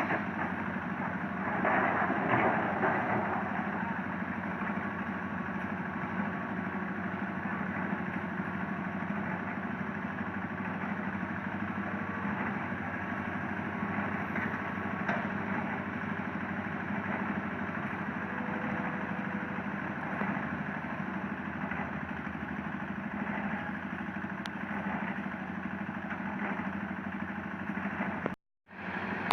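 Hitachi Zaxis 200 long-arm excavator's diesel engine running steadily, with a steady low hum. The sound swells about two seconds in and then settles. It cuts out briefly near the end.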